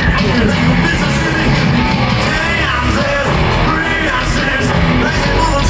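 Live country-rock band playing loud through a stadium sound system, with a sung vocal over electric guitars and drums.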